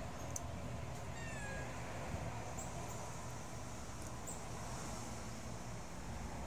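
A single short animal call about a second in, its pitch falling and then levelling off, over a steady low background rumble.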